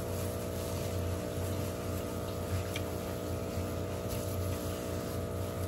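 Steady machine hum made of several even tones, with a few faint ticks about halfway through.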